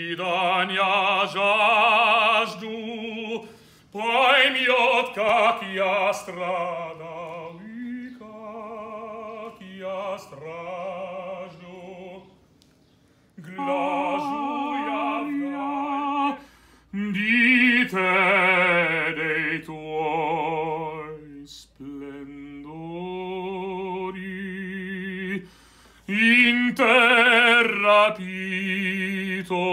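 Operatic tenor singing unaccompanied: a full, strong voice with wide vibrato, in long phrases broken by short pauses.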